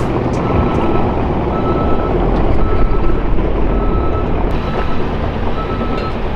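Heavy construction machine's engine running with a reversing alarm beeping about once a second, with a brief pause about two-thirds of the way through.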